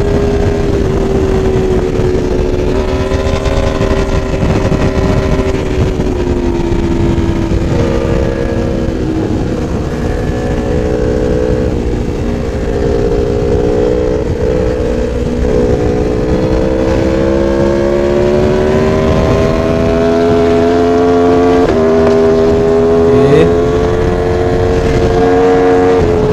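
Sport motorcycle engine running at high revs at highway speed, heard from on the bike with wind rush. Its pitch climbs slowly through the second half, then steps down sharply about four seconds before the end and holds.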